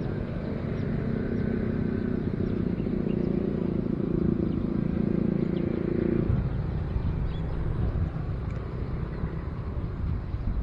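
Wind rumbling on the microphone, with a low droning hum for about the first six seconds that stops suddenly.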